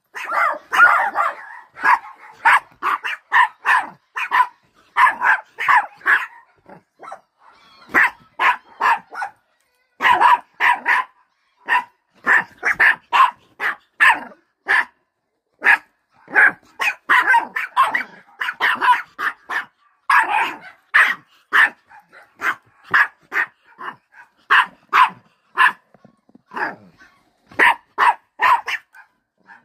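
Miniature pinschers barking: rapid strings of short, sharp barks, repeated over and over with only a few brief pauses.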